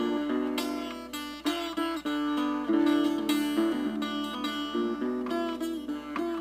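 Acoustic guitar music: a run of plucked notes played on a single guitar.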